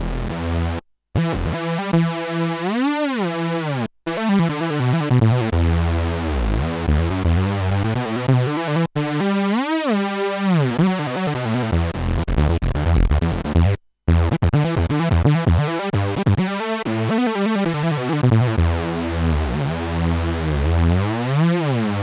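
Moog One polyphonic analog synthesizer playing a preset: held chords with a swirling sweep that rises and falls in tone several times. The sound cuts out very briefly four times, about a second in and again near 4, 9 and 14 seconds.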